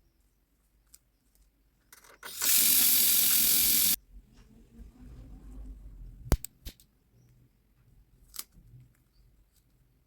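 Paper-crafting work sounds. A loud, even hiss-like noise lasts about a second and a half, starting a couple of seconds in. Light handling sounds follow, with a sharp click about six seconds in and another near eight seconds.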